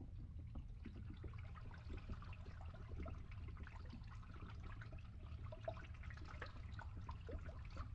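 Faint underwater ambience from coral reef footage: a steady low rumble with many small bubbling pops and crackles scattered through it.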